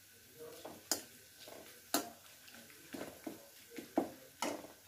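A metal slotted spoon clinking and scraping against an aluminium kadhai as whole spices (bay leaves, cinnamon stick, black cardamom) are dropped in and stirred: a string of sharp clinks about a second apart, with short scrapes between them.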